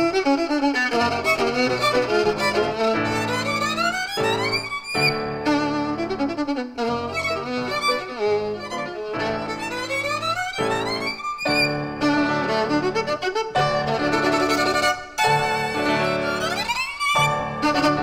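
Violin playing a fast, virtuosic passage with several quick rising runs, over piano accompaniment.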